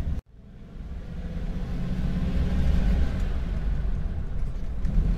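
A 1935 Ford running along the road: a steady low engine and road rumble. The sound cuts out for a moment near the start, then comes back and builds up over the next couple of seconds.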